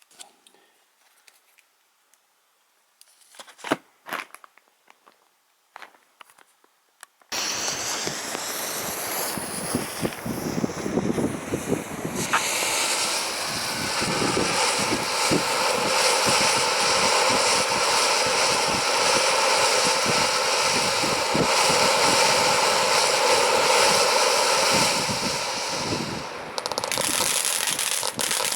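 A few faint clicks, then about seven seconds in a firework fountain catches suddenly and sprays with a steady loud hiss full of fine crackling, growing stronger a few seconds later.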